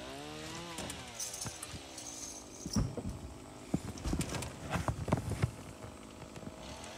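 Stihl MS 170 two-stroke chainsaw blipped up in pitch in the first second and falling back, then idling with an uneven knocking putter for a few seconds, and revving up again near the end.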